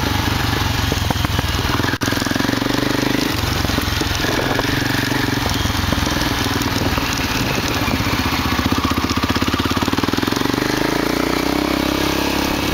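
BMW F650 motorcycle engine running while riding a dirt road, its note shifting up and down with the throttle. A steady rush of wind and tyre noise runs under it.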